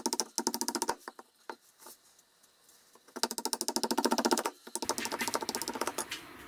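A flat-bladed hand tool scraping back and forth across the end of a wooden stick in rapid strokes, about ten a second, in a burst at the start and another about three seconds in, with a quieter stretch between. After about five seconds it gives way to a softer, steady scratching with light ticks.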